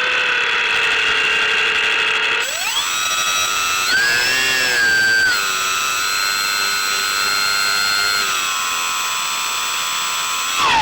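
Motor-and-propeller whine of a C1 Chaser RC model plane under changing throttle. The pitch jumps up sharply about two and a half seconds in, wavers, eases down slightly near eight seconds, and falls away again at the end.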